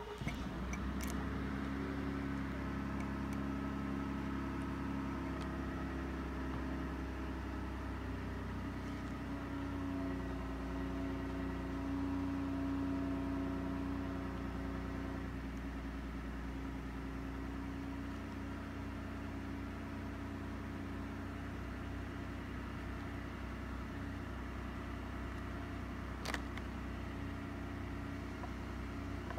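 Lexus LC 500's 5.0-litre V8 starting up and settling into a steady idle, with a single sharp click near the end.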